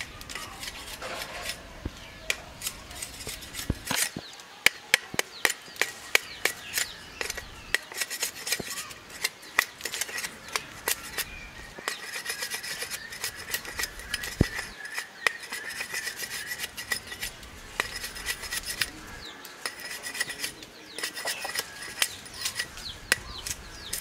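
Broad-bladed chopping knife scraping and shaving the rind off a sugarcane stalk, in quick irregular strokes of sharp clicks and rasping scrapes.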